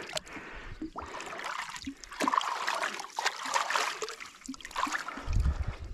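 Water splashing and trickling as a smallmouth bass is released by hand at the water's surface and swims off. A low rumble comes in near the end.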